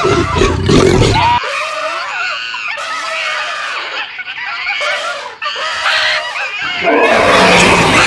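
Cartoon scuffle of vocal effects: high, wavering screams and squeals for several seconds, between loud, noisy roaring stretches at the start and again near the end.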